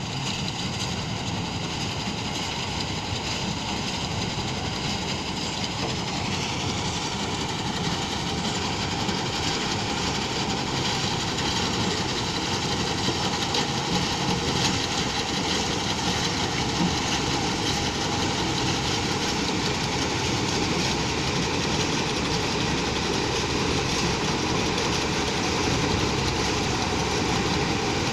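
Combine harvester running steadily at work, a continuous engine and machinery drone with a faint high whine that shifts pitch about six seconds in.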